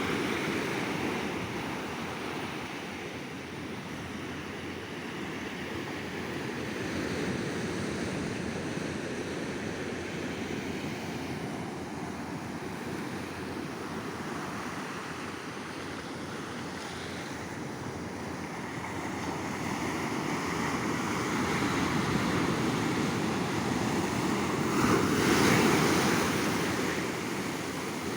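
Sea waves breaking and washing up a beach, a steady surf wash that swells and ebbs, with one louder wave breaking near the end. Some wind noise on the microphone.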